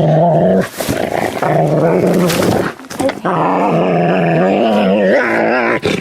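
A dog growling and grumbling in long drawn-out pitched vocalizations, three long stretches with short breaks between them.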